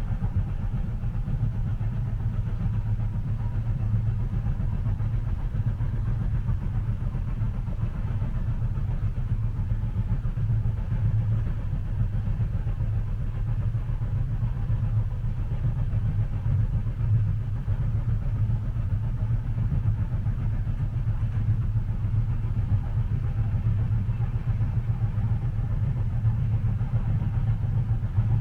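Steady low rumble inside a moving train carriage, even throughout with no distinct beat of wheels over rail joints.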